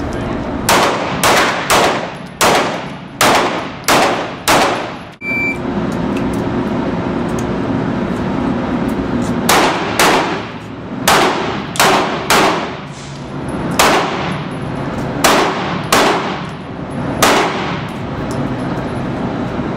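Handgun shots in an indoor range, each with a ringing echo: a rapid string of about nine shots over the first five seconds, then a break and a second string of about a dozen shots, some in quick pairs.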